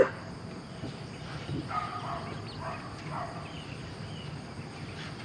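Farm animals calling: one short loud call right at the start, then a string of short higher-pitched calls about two to three seconds in.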